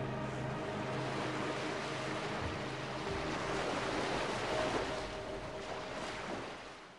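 Sea surf washing in a steady rush that swells a little partway through, with the last notes of background music dying away beneath it. Everything fades out near the end.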